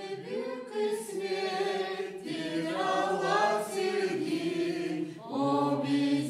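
A church choir singing a Gagauz hymn, several voices together in long held notes, with a short breath between phrases about five seconds in.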